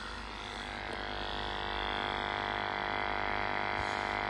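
Handheld flue gas analyser's sampling pump running as it draws from the boiler flue, a steady hum made of many even tones that builds slightly over the first couple of seconds and then holds.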